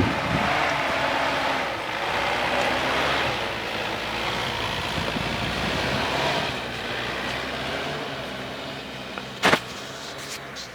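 Force Gurkha SUV's diesel engine running under off-road driving, with a broad rushing noise of tyres and wind that is loudest for the first several seconds and then slowly fades. A single sharp knock about nine and a half seconds in.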